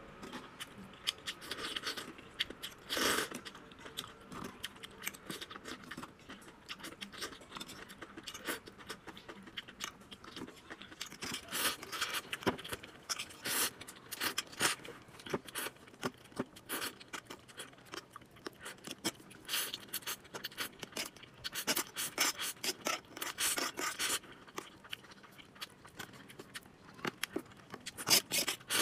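Slurping and chewing of noodles and enoki mushrooms in chili sauce: quick wet sucking slurps and mouth smacks at an irregular pace, with brief louder slurps now and then.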